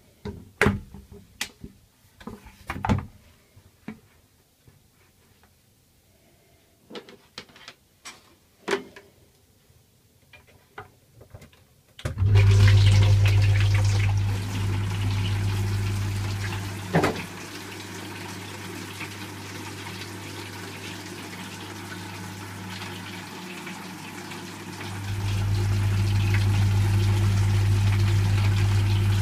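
A few knocks and clicks as a glass carboy is set upside down on a plastic bucket, then a 220 V 45 W submersible water pump starts about twelve seconds in: a steady low hum with water spraying inside the inverted carboy and splashing back into the bucket. The hum and spray drop in level for a while and come back up louder near the end.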